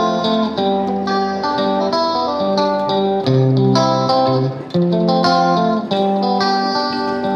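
Instrumental background music: a melody of plucked notes.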